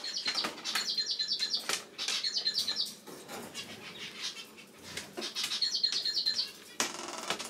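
A pet bird chirping in quick runs of short high notes, one run after another over the first three seconds and again around six seconds in, with scattered rustling and flapping noises between them and a short burst of rustle near the end.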